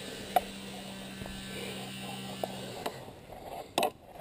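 Climbing a wooden pole: a few sharp knocks and clicks as hands, shoes and climbing gear strike and scrape the wood, the loudest about half a second in and another burst near the end, over a low steady hum that stops about three seconds in.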